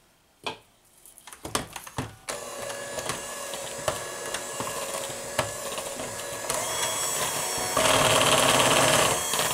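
A few knocks, then an electric hand mixer starts about two seconds in and runs steadily, beating flour into a thick cake batter. It gets louder twice as the speed is stepped up.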